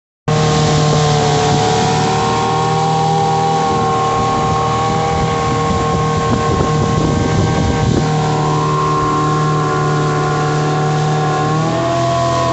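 Mariner 15 HP outboard motor running steadily at cruising speed, with water rushing past the hull and wind hiss. The engine note dips slightly and comes back up near the end.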